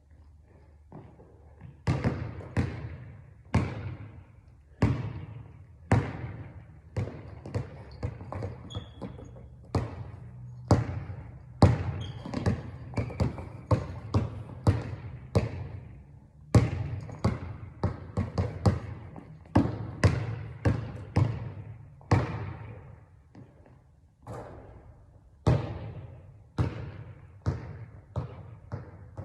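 Basketball being dribbled on a hard court: a run of sharp, echoing bounces at one to two a second, with a short break a little after two-thirds of the way through.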